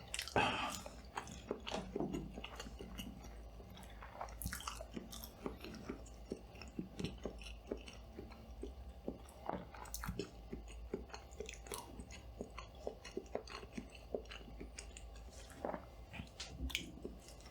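Close-miked chewing and biting of food, with crunchy clicks coming every fraction of a second in a rough rhythm. A steady low hum runs underneath, from the lighting, which the uploader says turned out to be noisy.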